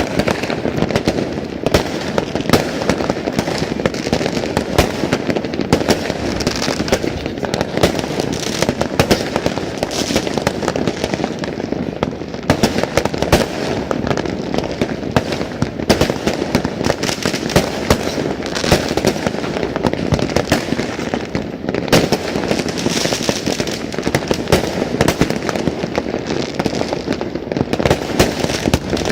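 Many fireworks and firecrackers going off at once: a dense, continuous crackle of pops and bangs, with sharper reports standing out every second or so.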